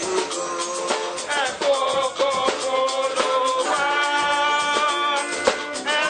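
Choir and congregation singing a processional hymn in several voices, accompanied by drums keeping a steady beat.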